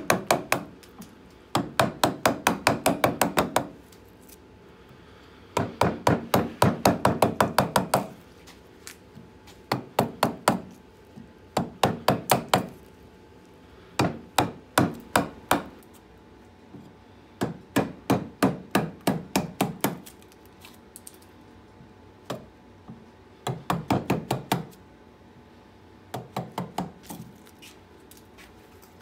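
A chisel being driven into a birch bowl blank with quick, repeated knocks, about seven a second, in bursts of one to two seconds with short pauses between, as the hollow is carved out.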